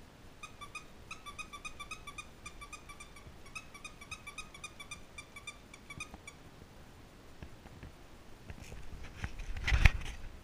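15-day-old Belgian Shepherd Tervueren puppy squeaking, a quick run of short high-pitched whimpers for about six seconds. Near the end, a loud knock and rubbing as a puppy bumps into the camera.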